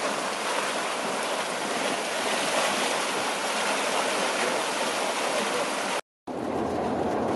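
Steaming mud pot churning with a steady rushing hiss. About six seconds in it cuts off briefly and gives way to the low rumble of a car driving on a highway.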